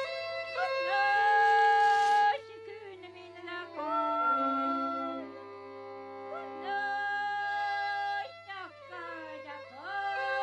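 Background music: a slow solo melody of long held notes, several of them reached by a slide up or down into the pitch.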